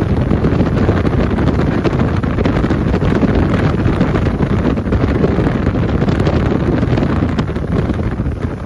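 Wind buffeting the microphone aboard a moving boat: a loud, steady, blustery rumble that eases slightly near the end.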